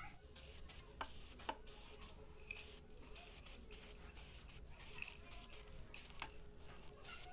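Diton Premium aerosol spray can of gloss black paint hissing faintly in short, repeated bursts as a second coat goes onto a plastic tail-light housing. Two light clicks sound early on.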